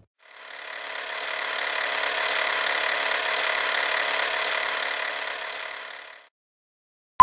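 Old film projector running, a steady mechanical whir and rattle that fades in and dies away after about six seconds, laid over a vintage film leader.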